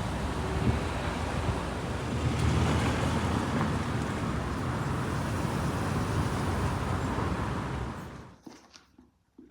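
Wind buffeting the microphone outdoors: a steady rushing noise, heaviest in the low end, that cuts off abruptly near the end.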